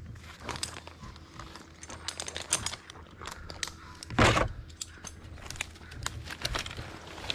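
Scattered light clinks and rustling from work gear being handled, with one louder scrape about four seconds in.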